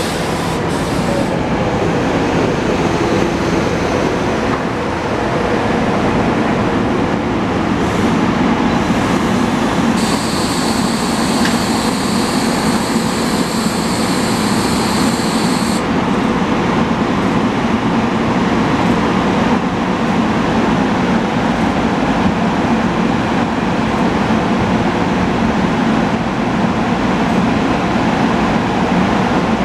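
SEPTA GE Silverliner IV electric multiple-unit train at the platform, its onboard equipment running with a steady, loud drone. A high hiss runs for about six seconds near the middle.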